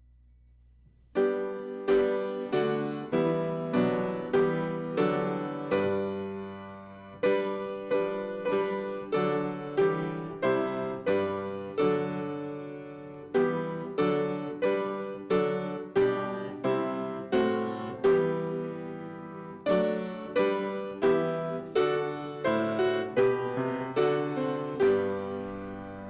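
Piano playing, starting about a second in, with each note or chord struck and left to ring.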